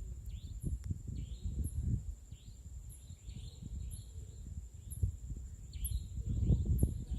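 Small birds chirping over and over in short, high, falling calls, over a steady high whine and low rumbling noise.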